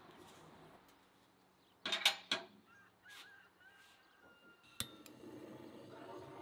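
Two or three loud, short sounds about two seconds in. Near the end, a sharp click as a handheld gas blowtorch is lit, followed by the steady hiss of its flame held to the kindling in a wood stove's firebox.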